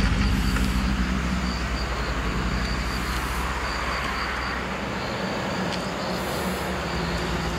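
Classic car engine pulling away up a climbing corner. Its low note fades over the first couple of seconds, then runs on steadily at a lower level.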